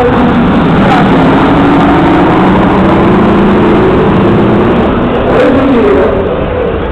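Heavy truck engine running loud under throttle. Its pitch climbs steadily for a couple of seconds, then eases off.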